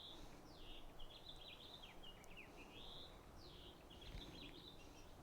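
Faint birdsong: a near-continuous run of quick, high chirps, many falling in pitch, over a quiet background hum.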